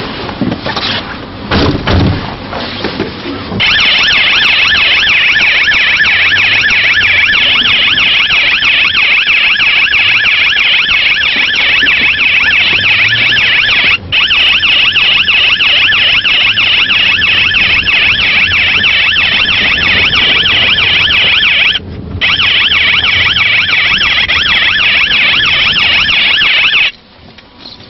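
After a few seconds of scattered knocks, a loud, high electronic siren starts and warbles fast without let-up. It drops out briefly twice and stops about a second before the end.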